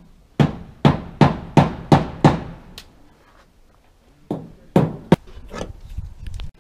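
Hammer blows on metal-tile roofing: a quick run of six strikes about three a second, each ringing briefly, then four more after a pause of about two seconds.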